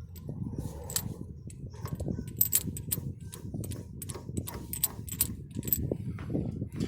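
Metal parts being screwed together by hand: irregular light metallic clicks and ticks as a hydraulic knockout punch is threaded onto a lug-stud drawstud adapter, over a low rumble of handling noise.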